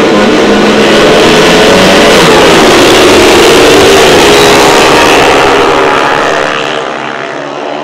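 A pack of longtrack racing motorcycles at full throttle off the start, several engine notes rising and sliding together. The sound falls away about six seconds in as the bikes draw off down the track.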